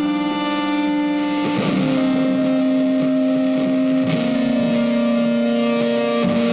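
Background music: a sustained, distorted electric guitar holding long notes that change every second or two.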